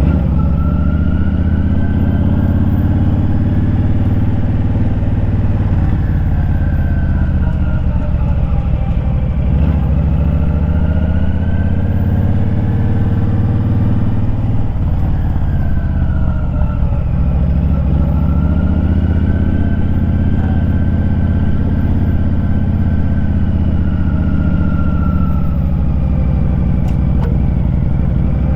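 Motorcycle engine running while riding, heard from the bike's own microphone, its pitch rising and falling slowly twice as the bike speeds up and slows down.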